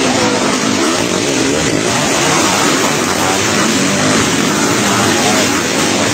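A pack of sidecarcross racing outfits revving hard as they pass close by, several engines at once with pitches rising and falling over one another. Loud throughout.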